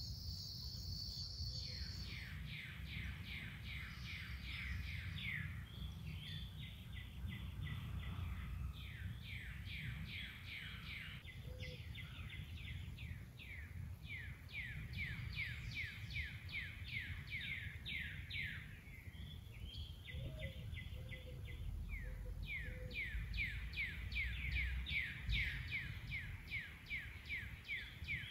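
A bird calling in long runs of quick, repeated down-slurred chirps, about three a second, over a steady low rumble of background noise. A steady high insect trill stops about a second in.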